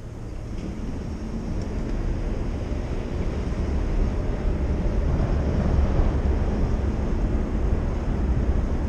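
Wind buffeting the microphone of a chest-mounted action camera on an electric moped, with low road rumble, growing steadily louder as the moped pulls away from a stop and picks up speed.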